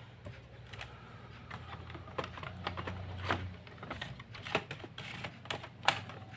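Irregular clicks and light knocks of laptop parts being handled and fitted into place by hand, with a few louder clicks toward the middle and later part.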